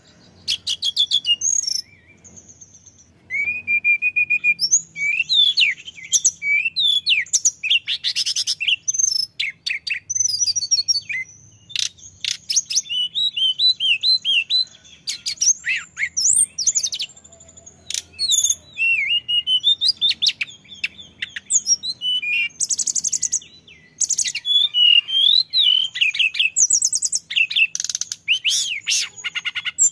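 Male hill blue flycatcher (tledekan gunung) singing nonstop: long runs of high, quick whistled phrases with rising and falling glides and rapid trills, broken only by brief pauses.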